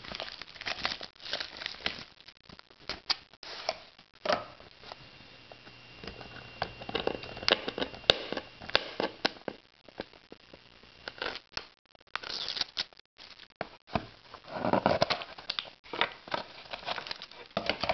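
Irregular crinkling, crackling and tearing of packaging being handled and opened by hand, the scattered clicks and rustles of unwrapping a sealed trading-card box.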